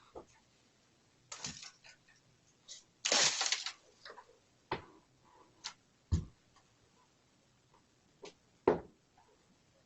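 Moose sniffing and licking at a front door, heard through a doorbell camera's microphone: scattered clicks and knocks, a half-second rush of noise about three seconds in, and a few low thumps, the loudest near the end.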